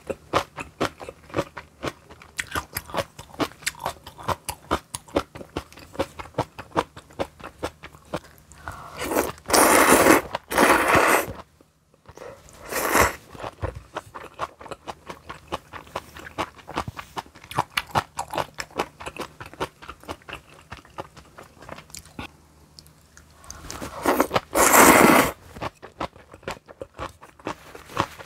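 Close-miked eating: steady crunchy chewing of garlic kimchi, with many small crunches. Loud slurps of kalguksu noodles come about ten seconds in, once more briefly just after, and again near the end.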